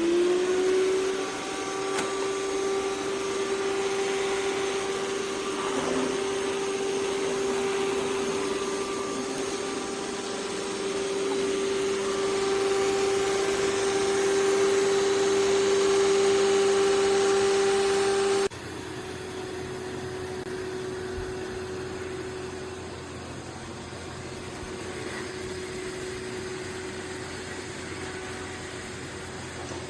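iRobot Roomba Plus 405 robot vacuum-mop running: its motor spins up with a rising whine and settles into a steady, loud hum over a wash of suction noise. About two-thirds of the way through, it drops abruptly to a quieter steady run.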